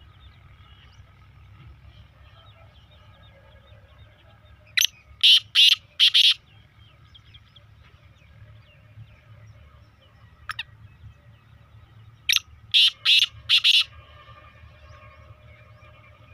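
A bird giving loud, harsh calls in two series of four, the second series about seven seconds after the first, over a faint background of other birds singing and chirping.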